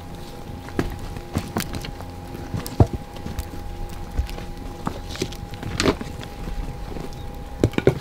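Axe striking a log on a wooden chopping block while splitting firewood: a string of sharp knocks, the loudest about three seconds in, over a faint steady hum.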